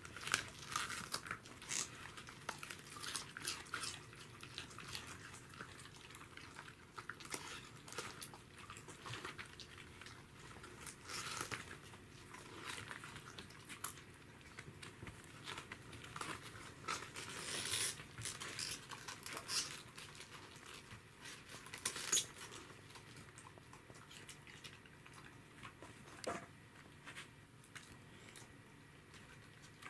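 Pembroke Welsh corgis biting, tearing and chewing raw cabbage leaves: irregular crisp crunches and leaf crinkling, with chewing in between.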